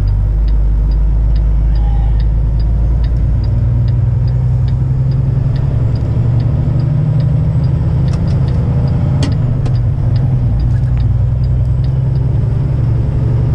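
Kenworth heavy-haul truck's diesel engine droning steadily under load, heard from inside the cab while driving. A light, regular ticking runs along with it, about two to three ticks a second.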